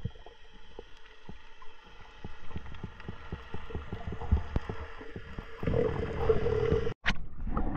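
Underwater ambience picked up by a camera in its housing: scattered clicks and crackles over a steady low hum. The noise swells into a louder rush near the end, then cuts off abruptly.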